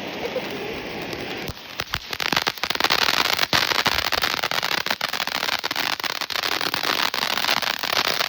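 Consumer fireworks: a steady hiss, then about a second and a half in, a dense run of rapid crackling pops that turns loud and keeps going.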